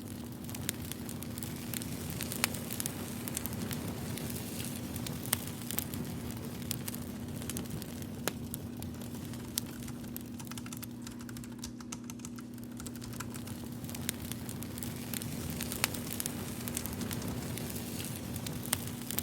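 Computer keyboard typing over a crackling fire: a fine continuous crackle with irregular sharp clicks, about one a second or fewer, above a steady low hum.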